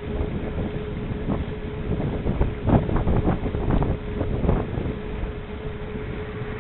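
Strong wind buffeting the microphone, a low rumble that surges in repeated gusts, with a faint steady hum underneath.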